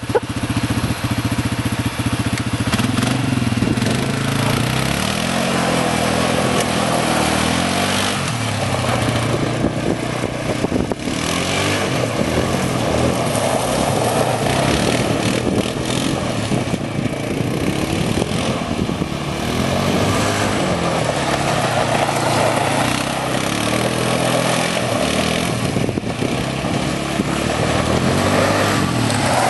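Outlander quad (ATV) engine being ridden in laps, its revs rising and falling over and over as the rider accelerates and backs off every few seconds.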